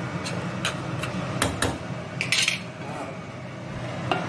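A metal spoon knocking and scraping against a cooking pan while minced chicken is stirred, about one sharp clink every half second, with a longer scrape a little past two seconds in. A steady low hum runs underneath.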